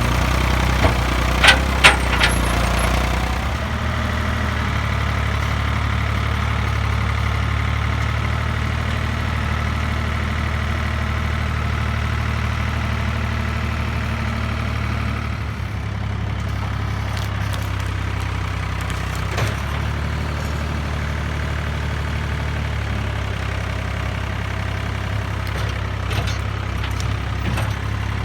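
Small tractor's engine running steadily, its note shifting a few times as the load or throttle changes, with a few short knocks and clanks.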